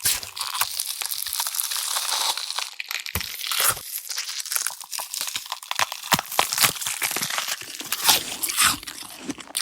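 Horror gore sound effects of crunching, ripping and biting flesh and bone: a dense run of short, sharp crunches and tearing, with a couple of deeper thuds about three seconds in.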